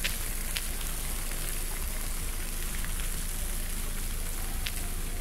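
Steady outdoor street hiss with a low rumble, broken by a few brief sharp clicks.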